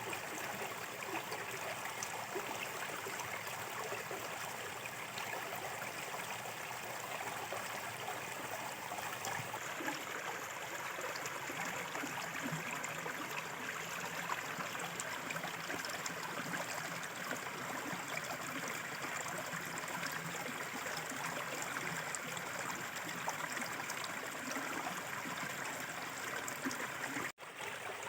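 A small river flowing, a steady babble of running water that briefly cuts out near the end.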